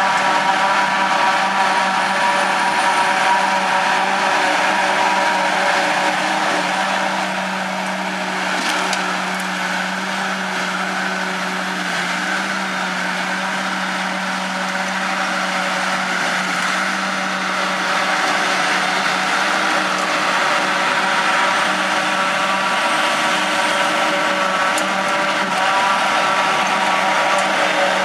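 John Deere 7450 self-propelled forage harvester at work chopping grass for silage, its engine and cutterhead giving a steady droning whine, with the tractor hauling the trailer alongside. It eases a little in the middle as the machines move off, then comes close again.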